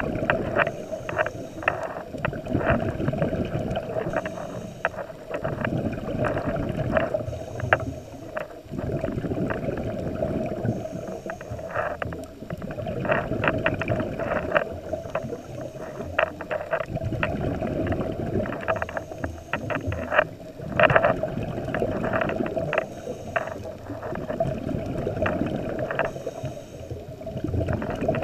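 A scuba diver breathing through his regulator, heard underwater: exhaled bubbles surge out every few seconds, over a steady hum and frequent sharp clicks.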